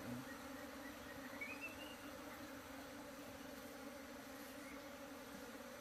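A colony of bees buzzing at a hive box, a faint, steady low hum.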